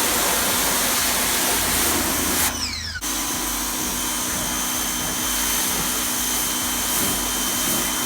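Ryobi 1600 psi electric pressure washer's motor and pump running with the water jet spraying through the 15-degree nozzle. About two and a half seconds in, the trigger is released and the motor winds down with a falling whine. Half a second later it starts again abruptly and runs steadily.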